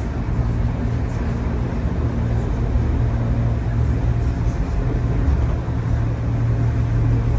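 Cabin sound of a DB class 425 electric multiple unit under way: a steady low hum and rumble of the running train, with faint high ticks over it.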